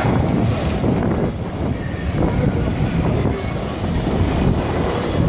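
A fixed-wing aircraft's engines running loud and steady close by.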